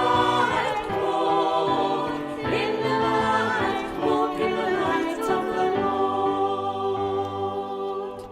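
Group of voices singing the closing phrase of a hymn, ending on a long held final chord that dies away near the end.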